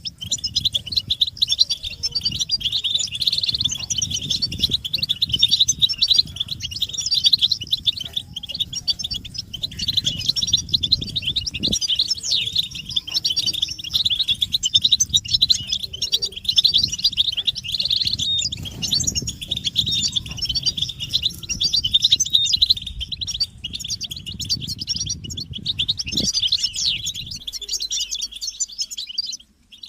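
A flock of European goldfinches twittering and chattering without a break in a dense, high-pitched chorus: the excited group calls of mating readiness that are used to stir a male goldfinch into song. The chorus cuts out briefly near the end.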